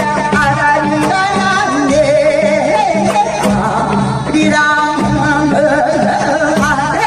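Korean folk singing, a melodic voice line with heavy vibrato over an evenly repeating low accompaniment.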